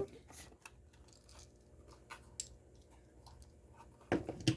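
Handling of a toy car's cardboard-and-plastic packaging: faint scattered clicks and crinkles, with a louder cluster of clicks about four seconds in.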